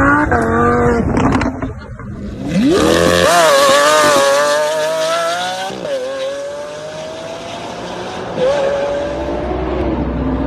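Lamborghini supercar engine revving in several separate runs. The pitch climbs sharply about two and a half seconds in, drops near six seconds, rises slowly again, and gives a short blip near the end.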